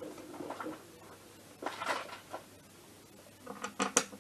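Small knocks and clicks of bolts and the kick-start cover being handled on an MBK Spirit scooter engine casing while the bolts are tried in their holes, with a quick run of sharp clicks near the end.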